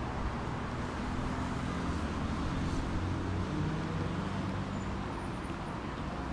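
Road traffic on a multi-lane city avenue: a steady rush of passing cars, with the low hum of a vehicle engine going by from about a second in until near the end.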